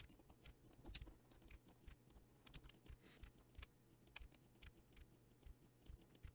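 Faint, irregular clicking of a computer keyboard and mouse, a few clicks a second, as keys are pressed.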